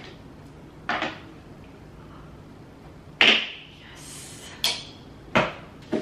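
Adjustable bed table being handled and its top tilted: four sharp knocks and clicks, the loudest about three seconds in with a short scraping rustle after it.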